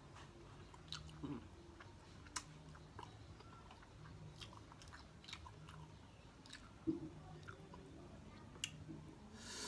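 Close-miked chewing and biting of boiled chicken: quiet, irregular wet mouth clicks and smacks, a few of them louder.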